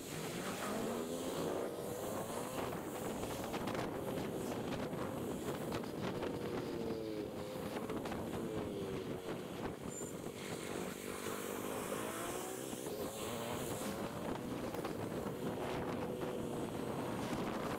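Suzuki Gixxer SF250's single-cylinder engine running under way, its note rising and falling several times with throttle and gear changes, over a steady rush of wind and road noise.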